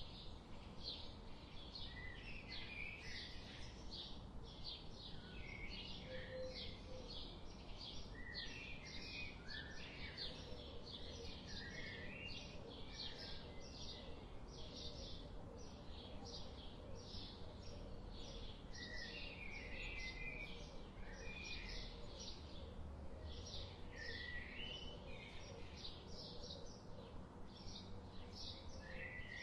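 Small birds chirping in a rapid, continuous patter, with short lower warbling phrases now and then, over a steady low background rumble of forest ambience.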